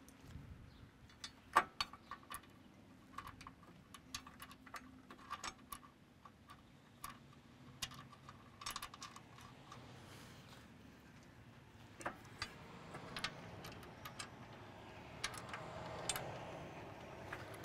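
Irregular light metallic clicks and clinks of bolts and residue knife parts being handled and fitted by hand on a corn head's stalk rolls, a few of them ringing briefly.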